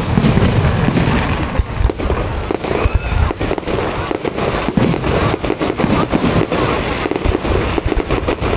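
Aerial fireworks display: a rapid, continuous run of bangs and crackles from shells bursting overhead.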